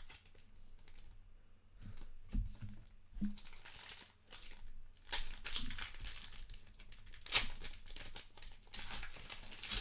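Trading card pack wrapper being torn open and crinkled in the hands, in bursts of rustling that are loudest about five seconds in and near the end.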